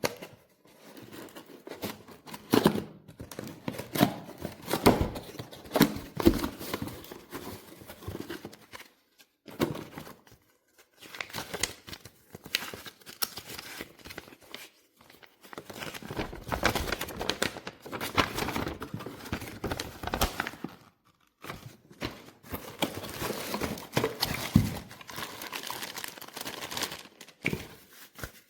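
Irregular crinkling and rustling of something being handled, in uneven bursts with a few short pauses.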